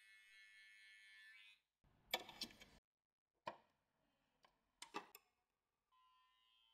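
Electric hair clipper buzzing, cut off about a second and a half in, followed by a brief rustle and a few sharp clicks; a fainter steady buzz returns near the end.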